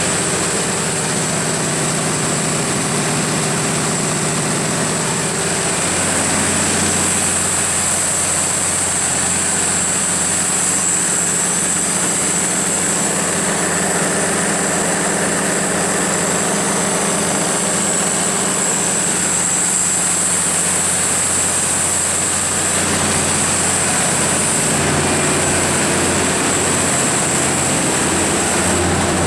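Cummins KTA19-G4 turbocharged inline-six diesel engine of a 500 kW generator set running steadily at constant speed, with a steady high whine above the engine note.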